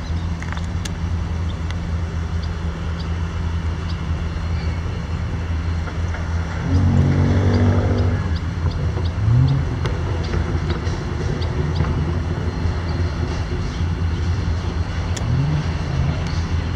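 EMD 16-cylinder diesel engines of CSX GP40-2 and SD40-2 freight locomotives running with a steady low rumble as the train rolls slowly along. About seven seconds in the sound surges louder for a little over a second, and short low rising swells follow later.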